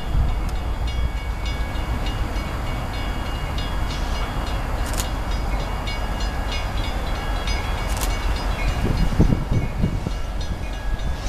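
Canadian Pacific diesel locomotive hauling covered hoppers approaching from a distance: a steady low rumble that swells about nine seconds in. Short high rings repeat about twice a second throughout, with two sharp clicks in the middle.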